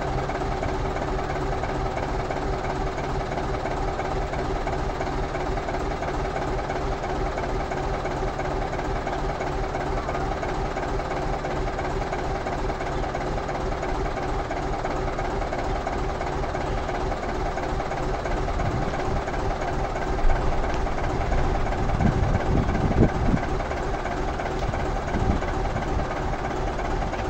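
Nissan Diesel truck's diesel engine idling steadily, with a few louder low thumps around twenty seconds in.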